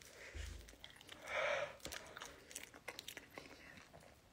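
A man chewing a mouthful of banana: soft, wet mouth clicks, with a louder breathy sound about a second and a half in.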